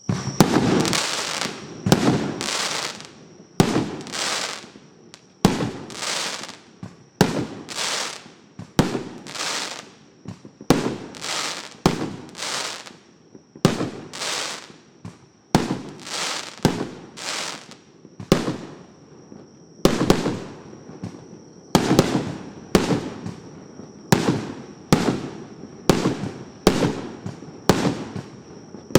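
A 1.5-inch, 88-shot fireworks cake firing shot after shot, about one or two sharp bangs a second. Each bang trails off into a short decaying tail.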